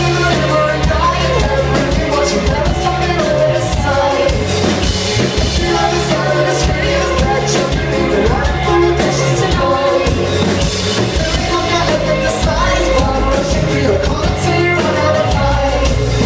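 Live band playing a loud pop-rock song, with singing over a drum kit.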